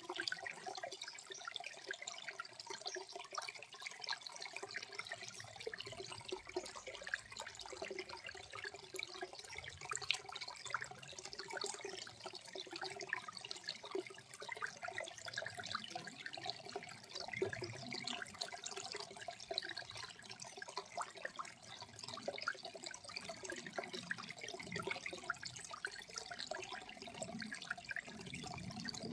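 Small waterfall at low flow: water softly babbling and splashing over rock in a steady, fine-textured stream of small splashes.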